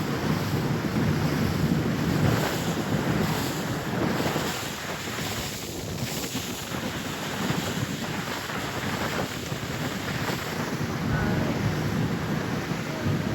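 Wind buffeting the microphone, with rushing water, aboard a moving boat; it eases a little midway, then picks up again.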